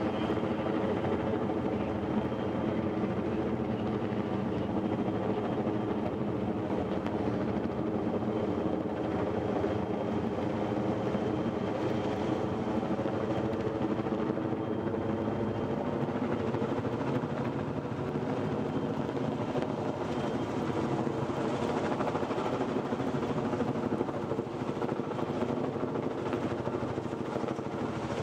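Helicopter flying with a whole tree slung beneath it on a long line: a steady rotor and engine drone.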